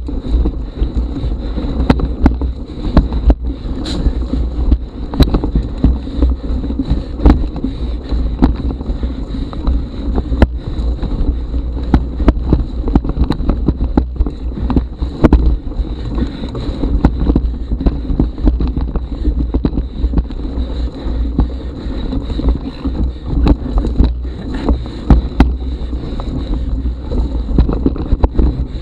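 Mountain bike ridden slowly over a rough dirt and rock trail, heard from the bike-mounted action camera: a steady low rumble with frequent sharp knocks and rattles as the bike and mount jolt over roots and stones.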